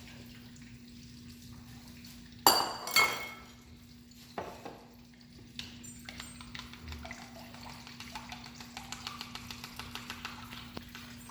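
Two sharp metal clanks of a utensil against the frying pan about two and a half and three seconds in, with a smaller knock a little later. Then breaded chicken cutlets crackle as they fry in hot oil, a steady sizzle, with a low hum underneath.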